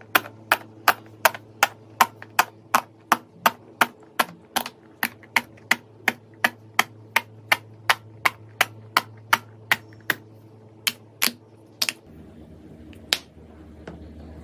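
Bubbles of a pop-it fidget toy being pressed one after another, a sharp pop about three times a second, thinning to a few scattered pops over the last few seconds.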